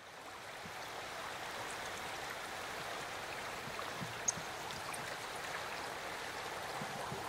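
Steady hiss of running water, fading in at the start, with one sharp drop-like tick about four seconds in.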